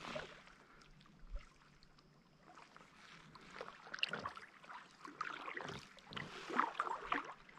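Kayak paddle strokes: the blades dip into the water with small, irregular splashes and drips.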